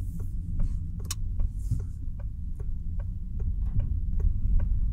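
A car's turn indicator ticking steadily, about two to three clicks a second, over the low, steady rumble of the engine and tyres heard inside the cabin.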